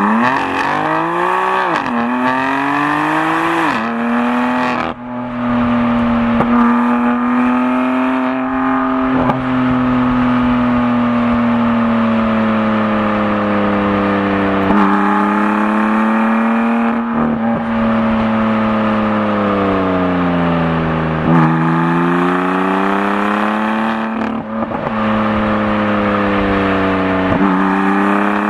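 BMW M4 Competition's twin-turbo inline-six engine and exhaust under way: it revs up hard and shifts up twice in the first four seconds, then runs at a fairly steady engine speed that dips and climbs again twice.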